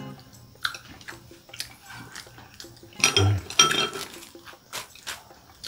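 Chopsticks and spoons clinking and tapping against ceramic rice bowls and dishes during a meal, in scattered light clicks, with a louder bout of clatter and rustling about three seconds in.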